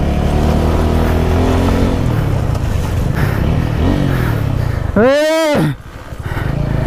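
Motorcycle engine running as the bike is ridden slowly over a rough, wet gravel road. About five seconds in, a loud short pitched call rises and falls in pitch, covering the engine for under a second.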